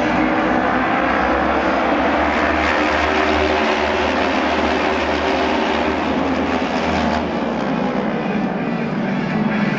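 Several auto race motorcycles' engines running hard together, a dense, steady mix of engine tones; the low rumble drops away about seven seconds in.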